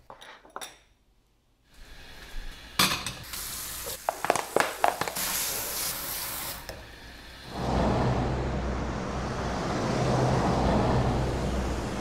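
Dishes and cutlery clinking at a kitchen sink, with the tap running briefly. Then a steady city street hum with traffic.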